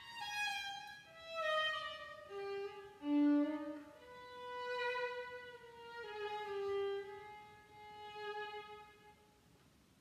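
Violin playing a slow melody one note at a time, stepping down in pitch over the first few seconds, then moving to longer held notes. It fades away near the end.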